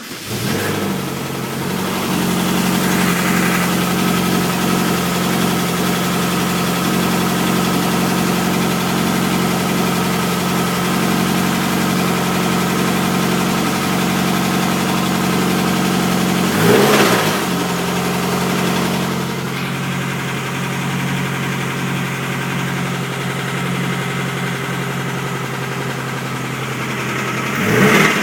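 GM Ecotec LSJ supercharged 2.0 L four-cylinder running cold just after first start-up following months of storage. It idles steadily, revved up and back down briefly about two-thirds of the way in and again at the end. It runs with an engine knock, which the owner finds milder than before and puts down to the engine not yet being warmed up.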